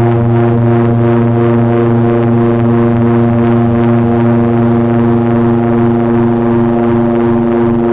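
Heavy electronic drone noise from Frequency Analyzer v1 units and a Hewlett-Packard 200C audio oscillator: a loud, steady, many-layered drone of held low tones, with a faint flutter in the upper range.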